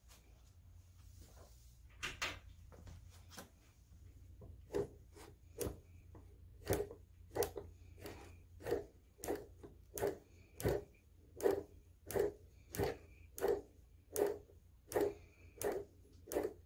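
American Bosch FX-1 magneto being turned by hand to fire a test spark plug, with a sharp snap at each spark. A few snaps come scattered at first, then a steady run of about three every two seconds, over a low hum.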